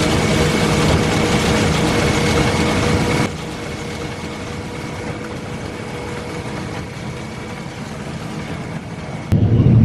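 Vehicle engine running steadily. It is loud with a broad hiss for about the first three seconds, then drops suddenly to a quieter steady hum, and jumps back up near the end.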